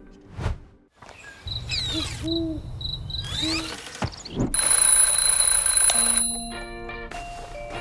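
Cartoon sound effects: an owl hooting a few times, then an alarm clock ringing loudly for about a second and a half, followed by a short run of stepping musical notes.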